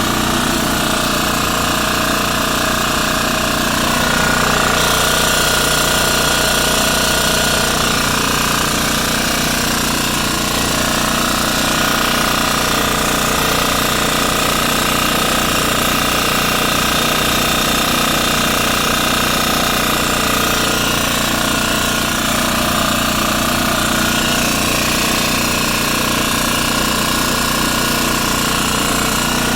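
A machine running steadily and loudly, with several whining tones that shift slightly about four seconds in.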